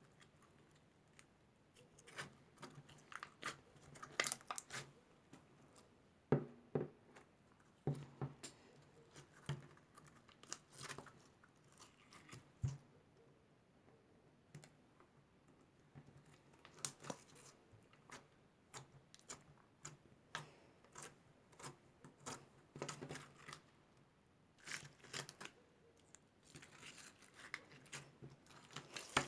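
Slime being worked by hand, giving irregular clicks and crackles, some in quick clusters.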